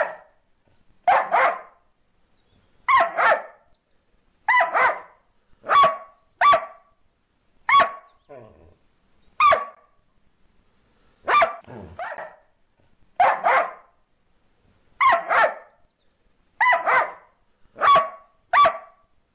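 Border collie barking over and over: sharp single barks and quick double barks, one bout every second or two with short silences between.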